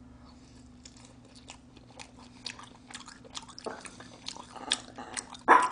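Close-miked chewing of a bite of combination pizza: wet mouth clicks and smacks, growing louder after about two seconds, with a few loud smacks near the end.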